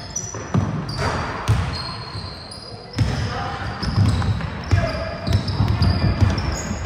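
A basketball dribbled and bouncing on a hall floor during a game, a run of low thuds that gets busier about three seconds in, with short high squeaks of shoes on the court and players' voices, all echoing in the large hall.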